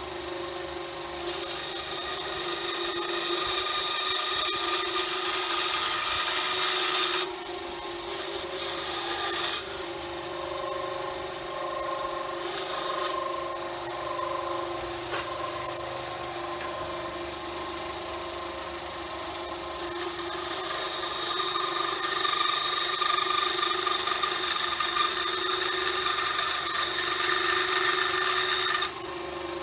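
Benchtop bandsaw running with a steady hum while its blade saws rounded corners out of an oak board. The cutting noise swells for several seconds at a time and stops sharply about seven seconds in and again near the end.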